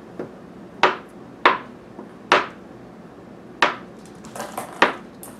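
Butcher knife chopping through a slab of candle wax, the blade knocking down onto a plastic cutting board. About five sharp chops come a second or so apart at an uneven pace, with a few lighter taps between them.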